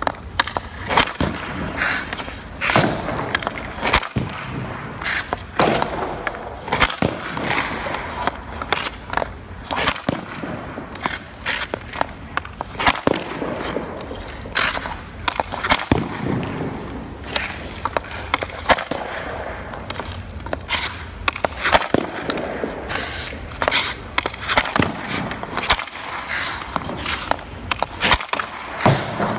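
Ice hockey shooting drill: a hockey stick repeatedly slapping and snapping pucks off the ice at irregular intervals, with skate blades and the stick blade scraping the ice between shots.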